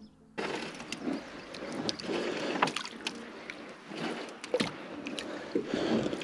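Fishing net being hauled up from icy, slushy lake water over the side of a small boat: water sloshing and dripping, with frequent sharp clicks and knocks. It begins suddenly about half a second in.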